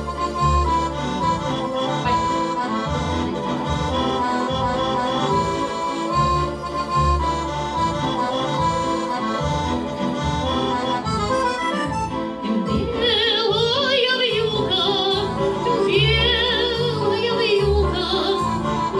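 Accordion playing a waltz melody over a pulsing bass. About two-thirds of the way through, a singing voice with a wide vibrato joins it.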